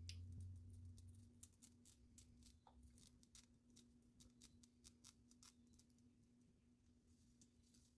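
Scissors snipping through the lace of a lace front wig: a run of faint, sharp snips that thins out after about five seconds.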